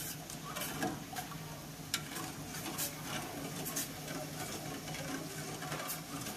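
Metal ladle stirring coconut milk in a stainless steel saucepan, with scattered light clinks and scrapes of the ladle against the pot over a steady low hum.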